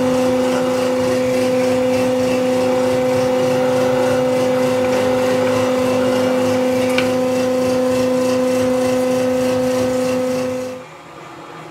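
Electric valve-seat cutting tool running with a steady hum as it cuts a valve seat in a Chrysler 440 big-block cylinder head. It stops suddenly a little before the end.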